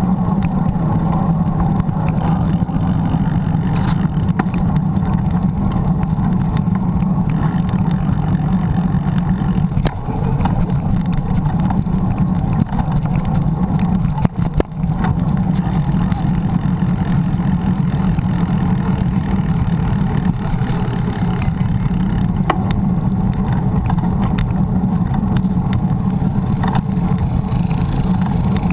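Steady low rumble of wind and road noise on a bike-mounted action camera's microphone while cycling along a paved street.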